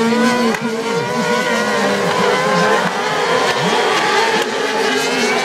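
Several cross-car (kart cross) racing engines revving together as the pack races on a dirt track, overlapping engine notes rising and falling in pitch as the drivers accelerate and lift through the turns.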